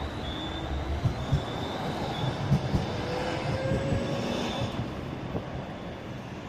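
A city tram running close by on street rails: a low rumble with several knocks from the wheels and track, a faint high wheel squeal, and a rising whine in the middle.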